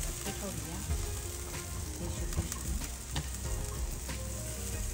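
Chicken thighs and red chili peppers sizzling on a barbecue grill, a steady hiss broken by sharp crackles as fat spits on the grates.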